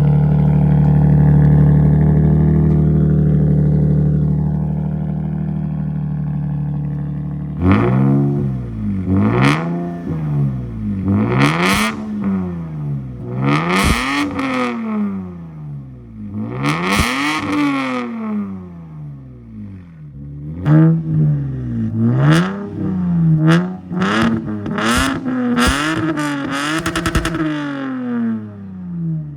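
Lexus IS200's 1G-FE straight-six running through a straight-pipe exhaust, idling steadily and then revved in a series of quick throttle blips from about eight seconds in, each rising and dropping back. The exhaust note is not raspy.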